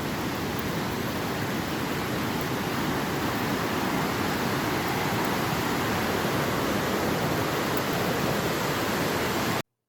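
Steady rush of falling water from the Kabir Kouba waterfall on the Saint-Charles River, cutting off abruptly near the end.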